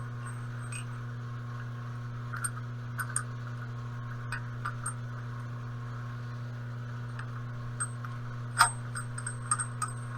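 Metal lathe running with a steady hum while cutting threads on a steel arbor, with scattered light metallic clicks and clinks, the loudest about eight and a half seconds in.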